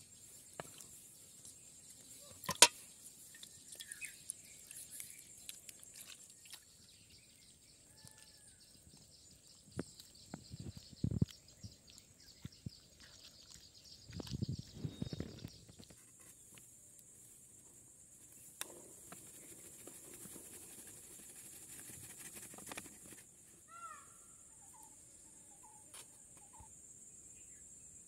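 Quiet rural outdoor ambience: a steady high insect drone with a few short bird chirps, and scattered knocks and rustling handling sounds. The sharpest knock comes about two and a half seconds in.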